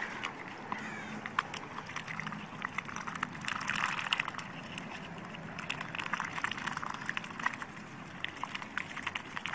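Two white domestic ducks dabbling their bills in the soft flesh of a hollowed half watermelon: rapid wet slurping and smacking with many quick bill clicks, busiest about three to four seconds in.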